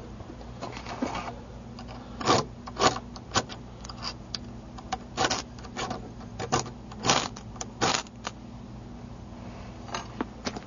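Striker scraped repeatedly down the flint insert of a custom knife backspacer to throw sparks: about a dozen short, sharp scrapes at an uneven pace, then a few lighter ticks near the end.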